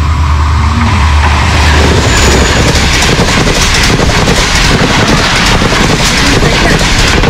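Pakistan Railways passenger train passing close at about 101 km/h. The HGMU-30 diesel locomotive's low engine hum comes first, then from about two and a half seconds in the coaches rush past with a loud rushing noise and repeated clatter of wheels on the rails.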